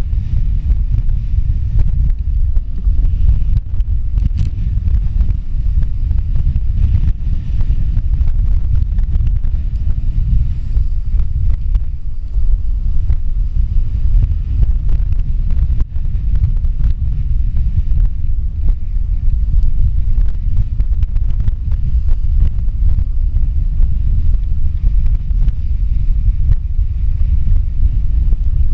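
Storm-force wind of about 55 knots buffeting an action camera's microphone on a sailing yacht's stern, a loud, constant low rumble, with the rush of breaking seas along the hull.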